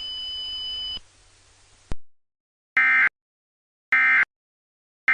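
Emergency Alert System end-of-message data bursts: three short bursts of SAME digital tones about a second apart, signalling the end of the alert. Before them, faint hiss with two steady high tones cuts off about a second in, and a click comes near the two-second mark.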